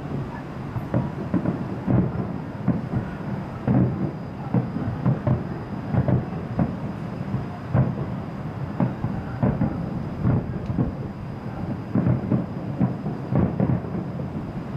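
Distant aerial firework shells bursting in rapid, irregular succession: a continuous rumble of deep booms, a few every second.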